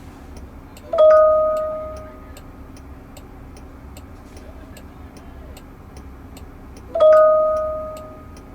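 An electronic two-tone chime sounds twice, about six seconds apart, each note ringing out and fading over about a second: the Waymo robotaxi's alert chime. A faint, steady ticking runs underneath at about three ticks a second.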